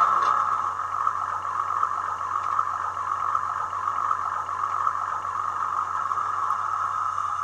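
Lok Sound V4 decoder in a brass model DoodleBug motor car playing its engine sound at idle through the model's small speaker, a steady thin hum.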